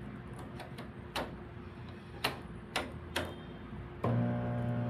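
A microwave oven's mechanical timer dial clicks several times as it is set. About four seconds in, the oven starts up with a steady electrical hum.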